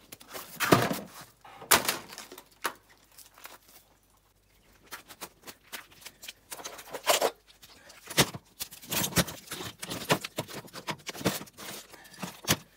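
Irregular clicks, knocks and rustles of hands handling stripped CRT TV scrap (plastic, circuit boards and wire), with a quieter spell about four seconds in.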